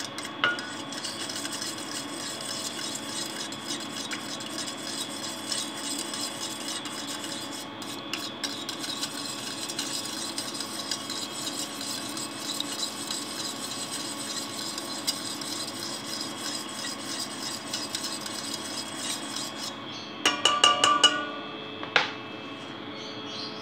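Metal spoon stirring a thin sauce in a metal bowl, a steady scraping and clicking of the spoon against the bowl. Near the end comes a quick run of louder clinks, then a single sharp knock.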